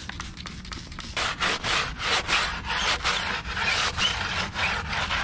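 A brush scrubbing a car wheel with cleaner, in quick back-and-forth strokes of about three a second that start about a second in.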